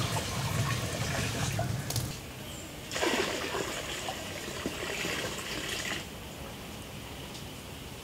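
Water poured from a small container splashing into a basin, in two pours: the first stops about two seconds in, the second runs from about three to six seconds in.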